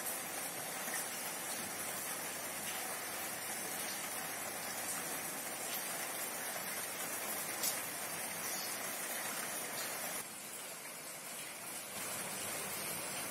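Butter knife spreading strawberry jam across soft white bread, a steady soft wet scraping hiss, with one light tap about eight seconds in.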